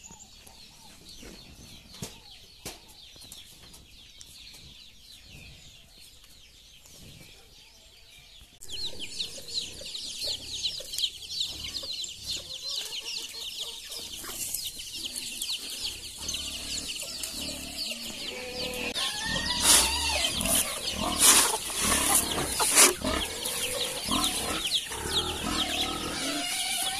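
A flock of hens with many chicks: after a quiet start, a dense chorus of high chick peeping begins suddenly about a third of the way in. Hens clucking grows louder over the last third, with a few sharp, louder calls.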